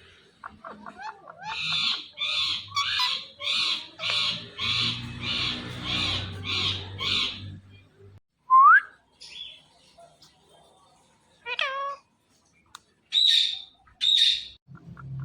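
Indian ringneck parrot squawking: a quick run of about a dozen harsh calls at roughly two a second, then one loud rising whistle, then a few more squawks near the end.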